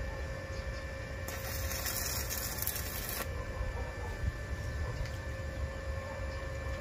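Arc welding on steel window grills: one burst of crackling hiss about two seconds long, starting a little over a second in, over a steady low rumble.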